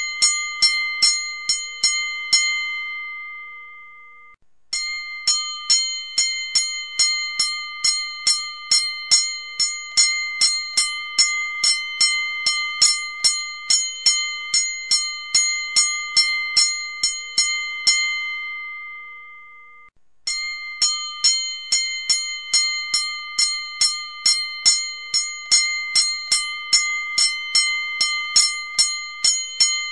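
Boxing ring bell struck rapidly and repeatedly, about four to five strikes a second, in long runs. Twice the striking stops and the bell rings on and fades for about two seconds before the next run starts.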